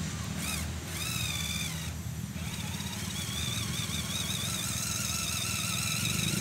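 Electric motor and gearbox of a scale RC crawler truck whining as it climbs a steep dirt slope. The pitch rises about a second in, then wavers up and down with the throttle.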